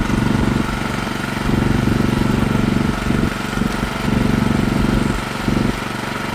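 Snow blower engine running with the auger engaged at the front. Its steady note weakens briefly three times and comes back each time.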